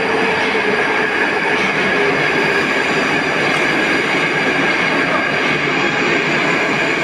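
Moscow Metro Moskva-2020 train running in along the station platform: a loud, steady rush of wheels and running gear with high whining tones above it.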